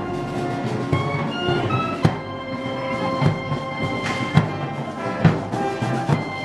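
Festival band music for Moros y Cristianos: brass holding sustained notes over a slow drum beat, about one heavy stroke a second.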